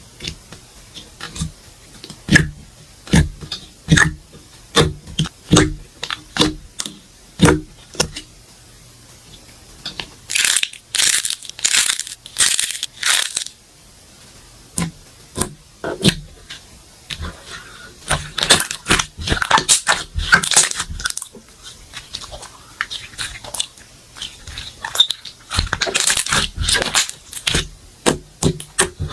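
Slime being played with by hand: a series of sharp, sticky pops and clicks, then several stretches of dense crackling.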